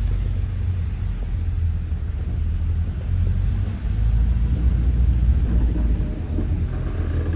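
City bus running, heard from inside as a steady, loud low rumble of engine and road noise.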